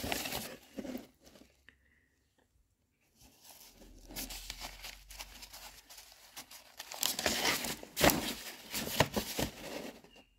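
Old, brittle paper documents rustling and crackling as they are handled and leafed through, with a pause of about two seconds near the start and the sharpest crackles late on.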